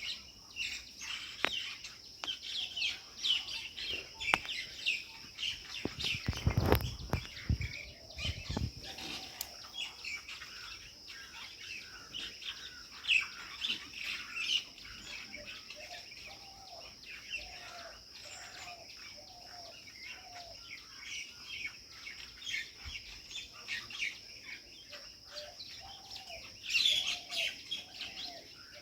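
A crowd of small birds chirping and twittering in a tree over a steady high buzz. From about halfway through, and again near the end, a lower bird call repeats evenly about twice a second. A brief low rumble sounds about a quarter of the way in.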